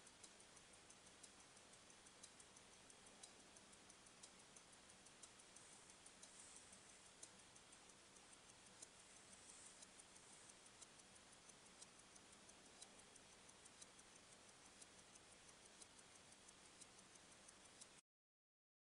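Mechanical wristwatch movement ticking faintly and fast, with a slightly stronger tick about once a second; the sound cuts off near the end.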